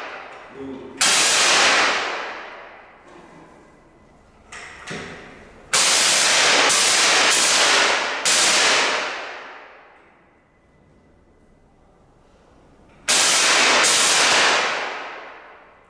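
LED CO2 jet machine firing blasts of liquid CO2, each a sudden loud hiss that fades out over a second or two. One blast comes about a second in, a quick run of four follows from about six seconds, and two more come near the end.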